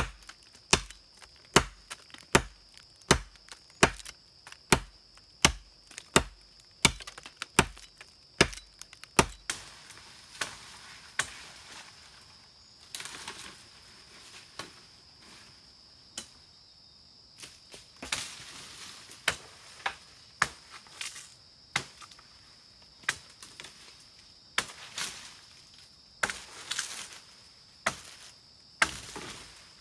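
A machete chopping into a tree trunk in regular strokes, a little over one a second, for the first nine seconds or so. After that come scattered knocks and rustling as bamboo and brush are handled. An insect's steady high-pitched buzz runs underneath throughout.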